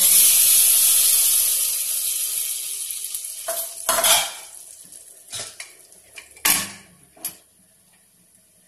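Hot tempering oil with mustard seeds, dried red chillies and cumin poured into dal in an aluminium pressure cooker: a loud sizzle that starts suddenly and fades over about three seconds. Then a few metal clanks and knocks of pan and pressure-cooker lid, the loudest about six and a half seconds in.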